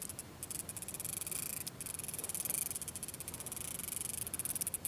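Fishing reel being cranked to bring up a hooked lake trout: a fast, steady clicking whir from the reel's gears under a light hiss.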